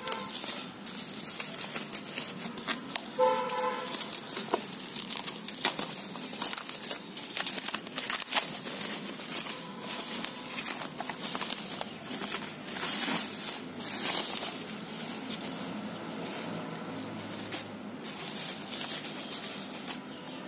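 Plastic bubble wrap crinkling and rustling as it is pulled and unwrapped from a small electronic unit, an irregular run of crackles throughout.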